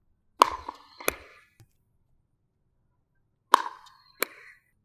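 Pickleball struck by a non-thermoformed Engage Pursuit Pro MX paddle: sharp pops with a short ring, heard as two pairs of hits about two-thirds of a second apart, one pair about half a second in and another past three and a half seconds.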